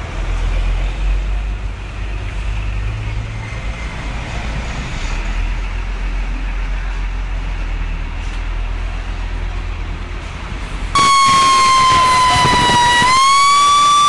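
A low steady rumble, then a loud siren starts abruptly about eleven seconds in as a single held tone that sags slightly in pitch and rises again.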